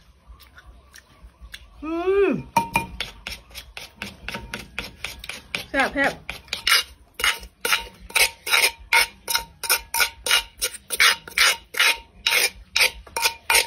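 Wooden pestle pounding in a clay mortar while a metal spoon turns and scrapes the contents, a steady rhythm of sharp strokes about three a second that starts after a couple of seconds and grows louder.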